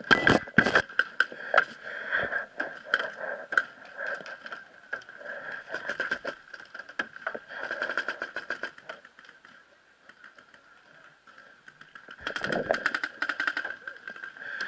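Paintball markers firing: sharp pops in quick strings, a cluster about the first second and a dense rapid string near the end, with scattered shots between. A steady high hum runs underneath.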